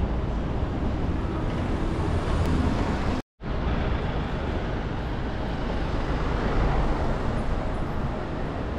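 City street ambience: a steady hum of road traffic, with the sound cutting out for a moment about three seconds in.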